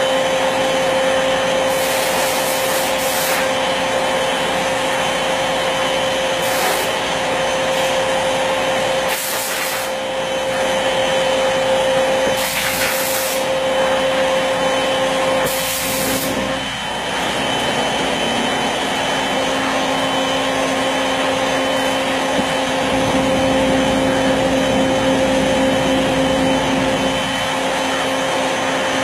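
CNC wood router running: a steady whine over a loud hiss, with brief bursts of sharper, higher hiss every few seconds.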